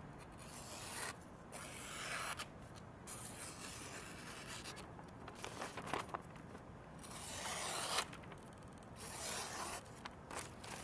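A very thin, hard CPM 10V knife edge slicing through phonebook paper in several separate strokes, each a faint papery hiss: a paper-slicing test of the edge's keenness.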